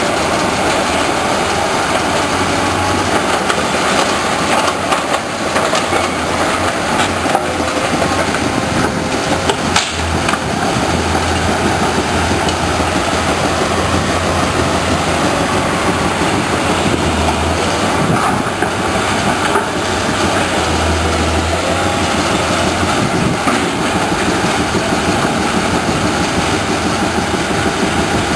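Nordberg mobile rock crusher and Kobelco SK210 tracked excavator working together on demolition rubble: a loud, steady din of diesel engines and crushing machinery, with the excavator's engine swelling and easing as it works and a few sharp knocks of concrete rubble.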